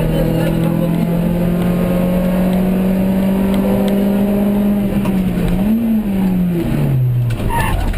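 Skoda Felicia rally car's engine heard from inside the cabin, pulling hard in one gear with its pitch climbing slowly. Near the end the revs blip briefly, then fall away as the driver lifts off.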